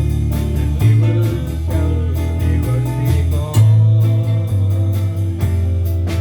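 A small band playing, with guitar over a bass line that changes note every second or so and a steady beat.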